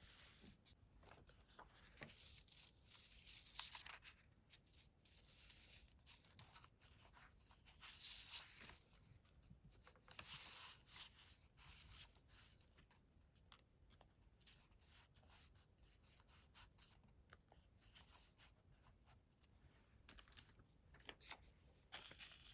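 Paper being handled for a collage: soft scattered taps and rustles, with two longer, louder papery swishes about eight and ten seconds in.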